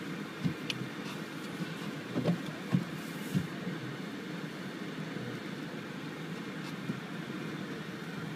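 Steady running noise heard inside a car's cabin, with a few short soft knocks in the first few seconds.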